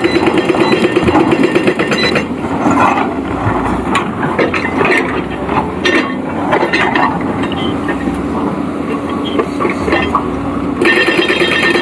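Excavator at work: the engine running with irregular metallic clanks and knocks. A fast, even mechanical rattle at the start stops suddenly about two seconds in and returns near the end.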